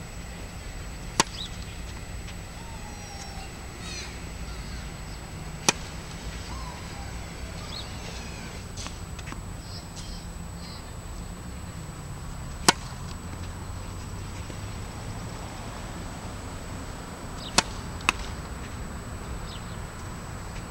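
Tennis racket striking the ball on serves: four sharp pops about five seconds apart, with a second knock half a second after the fourth.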